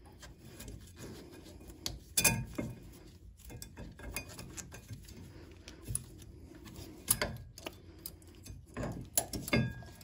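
Brake pad being worked by hand into a rear caliper carrier against its new spring clips: irregular metal scraping and light clicks, with a few sharper knocks.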